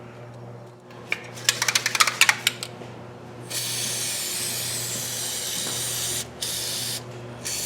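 A quick run of clicks, then an aerosol can of lanolin spray hissing in steady blasts from about halfway through, stopping briefly twice and starting again. The spray is being put on a wiring connection to keep out corrosion.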